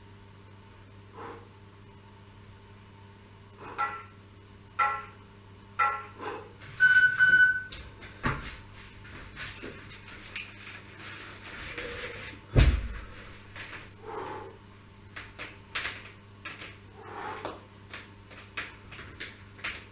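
Workout movement noises on an exercise mat: scattered knocks, soft rustling and one heavy thump about two-thirds of the way through as the body shifts and the suspension-trainer straps are handled. A few short high beeps sound about a third of the way in.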